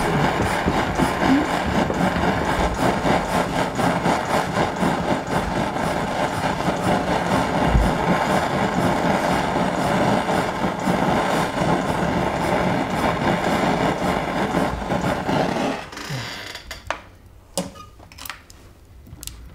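Jeweller's gas torch hissing steadily as it anneals a rolled gold strip, cutting off about 16 seconds in. A few light clicks and taps of tools on the bench follow.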